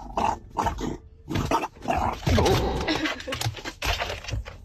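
A dog vocalizing in a run of short, uneven sounds.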